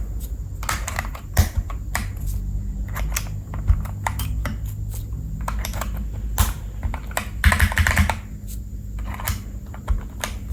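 Keys of a Keychron K4 V2 mechanical keyboard fitted with Akko PBT double-shot keycaps clacking irregularly, several clicks a second, as fingers press down on the keys.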